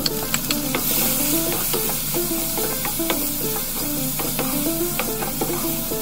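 Diced bacon and garlic sizzling in oil in a nonstick frying pan, the sizzle getting louder just after the start as the bacon goes in. A wooden spatula stirs and knocks against the pan in many short clicks.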